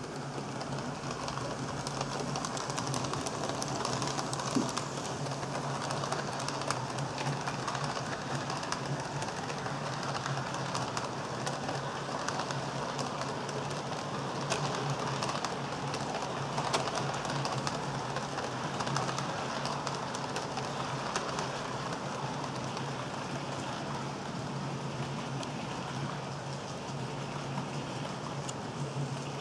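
HO-scale model train, a Proto 2000 EMD E8 diesel model hauling passenger cars, running on the layout track: a steady low motor hum with a dense, rain-like patter of small clicks and rattles from the wheels over rail joints and turnouts.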